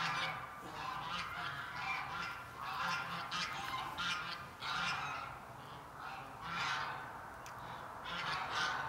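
Geese honking over and over in short, irregularly spaced calls.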